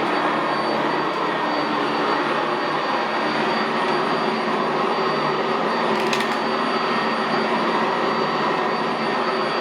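Sanitaire SC679J commercial upright vacuum cleaner running steadily on carpet, with a thin high whine over its motor and airflow noise. A brief click about six seconds in.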